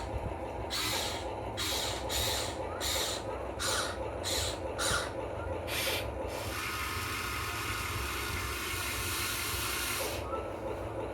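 Huina 1580 all-metal RC excavator's electric motors and gearboxes working in about eight short bursts, then a longer continuous run of about three and a half seconds, over a steady low hum.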